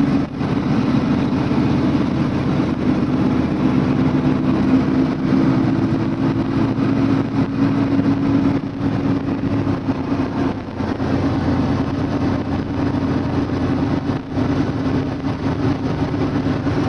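A vehicle engine running steadily at idle, a constant low hum with no change in speed.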